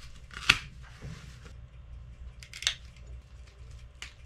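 Heavy-gauge battery cable being cut with hand cable cutters: a sharp snip about half a second in, then another sharp click a couple of seconds later, with faint handling of the cable between.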